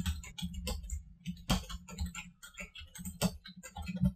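Typing on a computer keyboard: an irregular run of key clicks as a password and a terminal command are typed, over a low steady hum.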